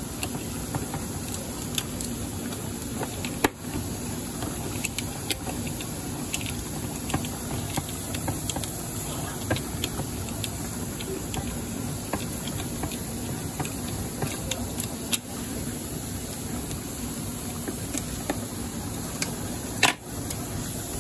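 A hand-held can opener working around the lid of a tin can of pork and beans, with scattered metal clicks and knocks, the sharpest a few seconds in and near the end. Under it runs a steady kitchen hiss and hum.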